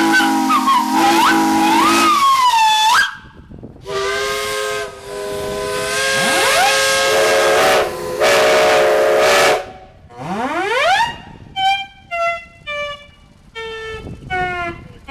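Several steam traction-engine whistles blowing together over a steady hiss of steam for the noon whistle blow. Some whistles are held and some slide up and down in pitch. After about eleven seconds they break into short toots.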